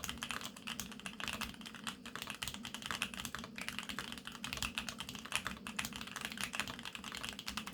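Steady, fast typing on a GEONWORKS F1-8X full-aluminium custom mechanical keyboard with factory-lubed Tangerine 67g linear switches: a continuous run of keystrokes.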